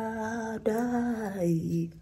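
A woman's voice drawing out a sing-song "bye" in two long held syllables, the second sliding down in pitch near the end.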